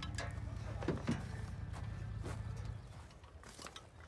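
A few scattered knocks and clicks of dirt bikes and their tie-down straps being handled in a pickup bed, over a low rumble that drops away about three seconds in.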